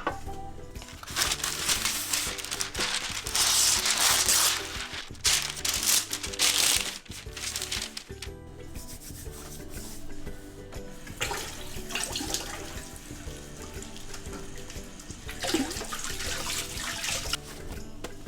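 Water running from a kitchen tap in three stretches, the first and longest lasting several seconds, with background music playing throughout.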